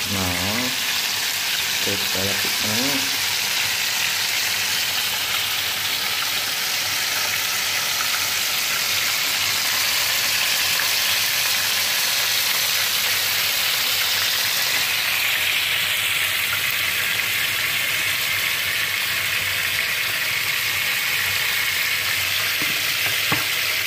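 Food frying in a pan, a steady loud sizzling hiss that holds level throughout.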